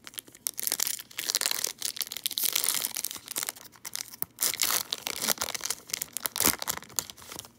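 Foil wrappers of Topps Gallery baseball card packs being torn open and crinkled by hand: a dense crackling that stops just before the end.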